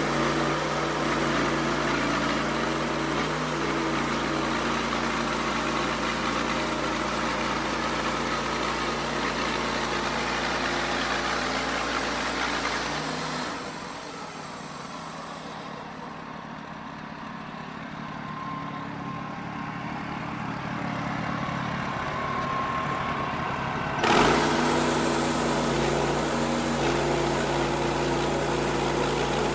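Band sawmill's gas engine running steadily as it drives the blade through a white oak log. About halfway through, the engine hum drops away to a quieter sound for around ten seconds, then comes back suddenly.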